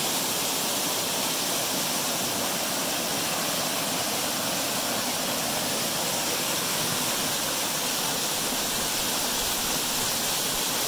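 Waterfall: whitewater rushing steadily down a rocky cascade.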